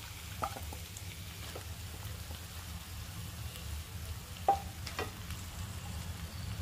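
Raw mutton pieces dropped from a steel bowl into a pan of hot tomato-onion masala, frying with a soft sizzle. A few sharp knocks come through, the loudest about four and a half seconds in, over a steady low hum.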